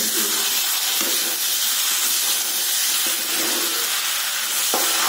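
Pork and daikon leaves frying in a hot wok, a steady sizzling hiss as they are stirred with a metal spatula, with a short knock near the end.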